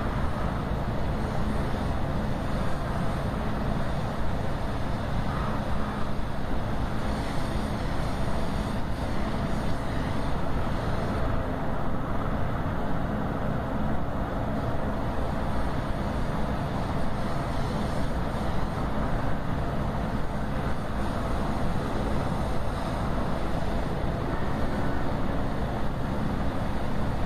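Docked passenger ferry's engines running with a steady, unchanging low drone.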